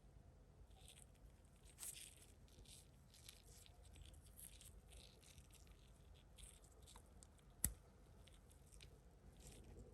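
Faint rustling and tearing of flash-drive packaging being handled, in short scattered scrapes, with one sharp click a little past two-thirds of the way through.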